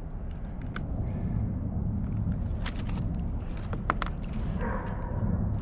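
Light metallic jingling and clicking, a spinnerbait's metal blades and hardware rattling as a freshly caught bass is handled and unhooked, in a quick cluster of clinks a little past the middle, over a steady low rumble.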